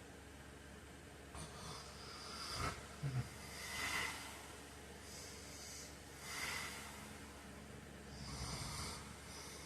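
A man snoring in his sleep: several irregular, breathy snoring breaths over a steady background hiss, the strongest about three to four seconds in with two short sharp snorts.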